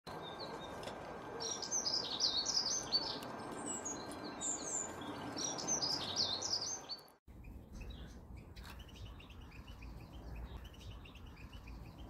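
Songbird song: rapid, high twittering phrases that cut off suddenly about seven seconds in. After the cut comes a fainter twittering song over a low, steady rumble.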